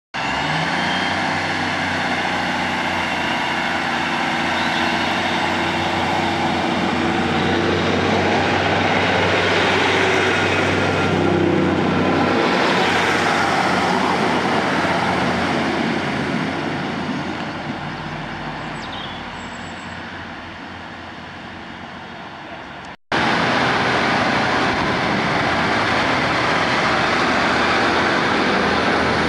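Class 150 Sprinter diesel multiple unit's underfloor diesel engines running as the train moves off. It passes close with a louder rush about 10 to 14 seconds in, then fades away. After a sudden cut, another Class 150 runs steadily at a platform under a station roof.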